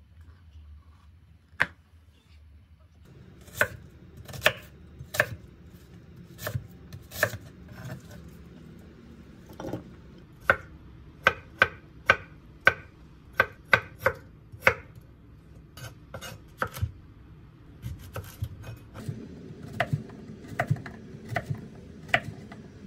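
Knife chopping on a cutting board: separate, unhurried strokes, roughly one or two a second, with a few short pauses.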